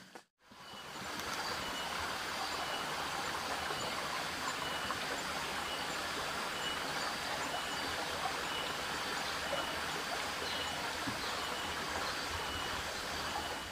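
Steady outdoor ambience of even rushing noise, like running water, fading in about half a second in, with a faint high chirp repeating at regular intervals throughout.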